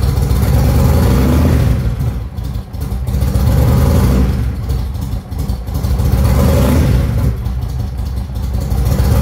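Cold carbureted cruiser motorcycle engine idling and being blipped by hand three times, a couple of seconds apart, settling back between revs. The throttle is being opened to check for a burp on acceleration, which the owner puts down to a carburetion problem or the cold.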